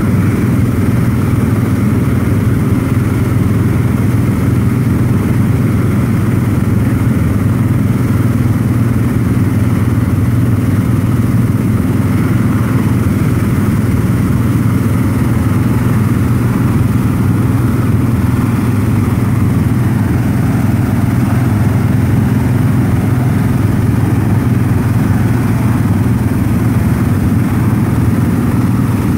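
Vehicle engine running steadily at constant speed: a loud, even drone that does not change.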